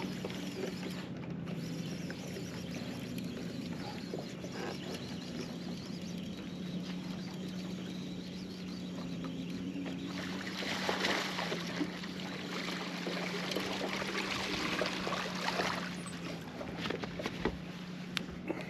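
Steady low hum of a trolling motor, with water splashing for several seconds a little past the middle as a hooked bass thrashes at the surface while it is reeled in to the boat.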